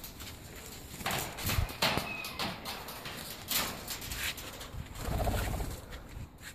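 Black-headed caique calling in short, harsh squawks with a brief thin whistle, amid scattered clicks and knocks.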